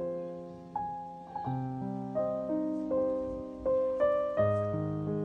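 Slow piano background music: notes and chords struck about once or twice a second, each left to ring and fade.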